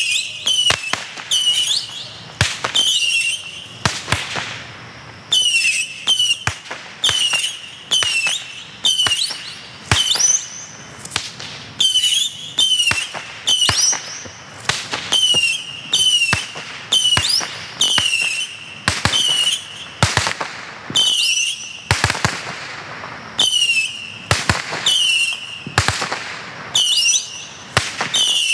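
Black Cat Missile Base 100-shot firework battery firing its small missiles in quick succession. Each shot is a short whistle with sharp cracks, repeating about one to two times a second.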